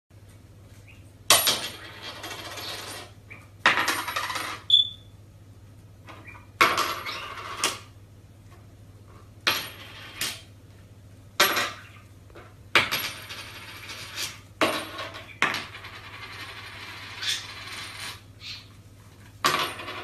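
Small tennis balls knocked and rolling across a hardwood floor by a budgie: about a dozen sharp knocks, each followed by about a second of rolling rumble. A short high chirp comes about five seconds in, over a faint steady low hum.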